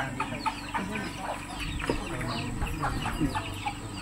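Chickens clucking and calling, many short falling calls overlapping several times a second.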